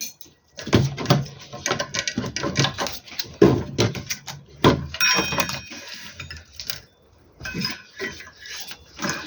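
Irregular clatter of hard objects being handled: knocks, clicks and scrapes of tools and metal or plastic parts, with a brief metallic ringing a little past halfway.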